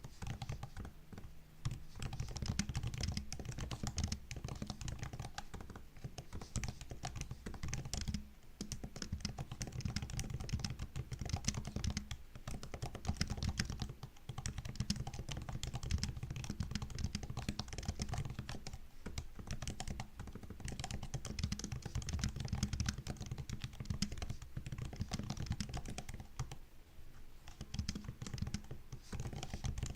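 Continuous fast typing on a MacBook's built-in laptop keyboard: a dense patter of soft key clicks, with brief pauses now and then.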